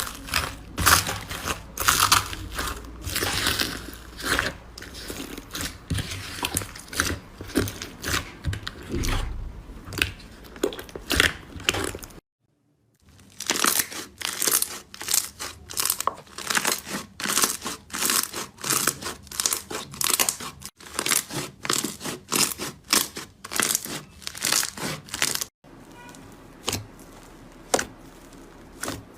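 Slime being squeezed and handled, with dense sharp crackles and pops. The sound drops out for under a second about twelve seconds in, and is quieter and sparser near the end.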